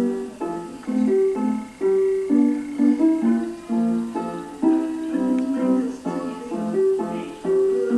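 Instrumental music: a melody of short struck or plucked notes in a steady rhythm, about two notes a second, with no bass.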